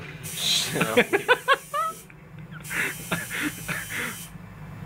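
Steady electric buzz of a tattoo machine, with short voice sounds over it, loudest between one and two seconds in.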